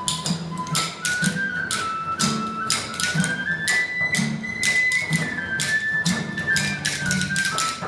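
Instrumental folk music: a flute plays a stepping melody over a strummed acoustic guitar, with sharp percussion clicks keeping a steady beat.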